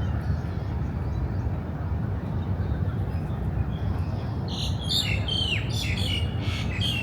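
Birds calling from about four and a half seconds in: a quick run of harsh squawks and chirps, several with sharply falling notes, over a steady low background rumble.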